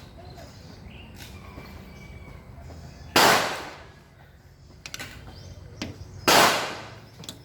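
Two gunshots about three seconds apart, each loud and sharp and ringing out for about half a second, with a few faint clicks between them.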